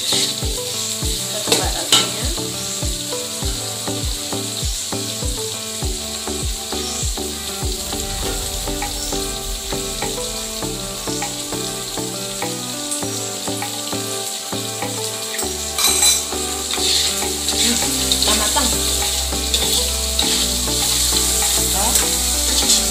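Salted squid sizzling in hot oil in a metal wok, stirred with a metal spatula that scrapes and taps against the pan.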